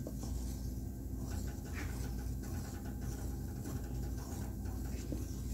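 Wooden spoon stirring a thick blended chile sauce in an enamelled pot: soft, irregular swishing with faint small ticks, over a steady low hum.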